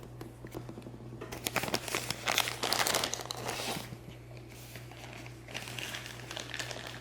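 Packaging crinkling and rustling in irregular bursts as a camcorder is lifted out of its box. The crinkling is loudest about two to three seconds in, then goes on more faintly.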